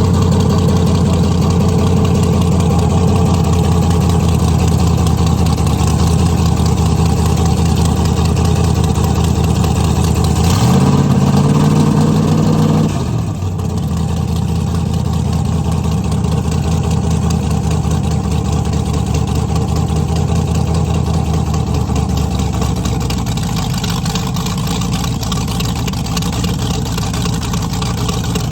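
Cigarette boat's 572 big-block V8 engines idling, revved once about ten seconds in, rising in pitch, then dropping back to idle a couple of seconds later.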